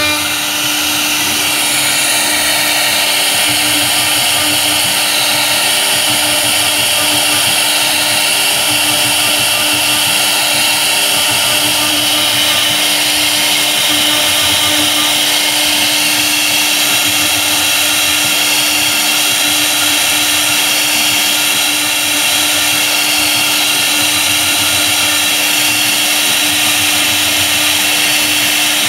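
CNC router spindle running at speed with a V-bit carving into an MDF board: a steady whine with the rasp of the bit cutting.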